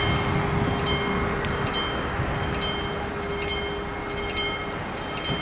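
Level-crossing warning bell striking a little more than once a second, each strike ringing briefly, as the barrier arm comes down. Under it a steady hum fades out near the end.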